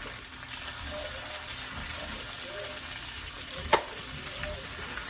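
Pasta with basil pesto, onions and pepperoni being stirred in a hot pan, sizzling steadily. The utensil gives one sharp clink against the pan a little after halfway.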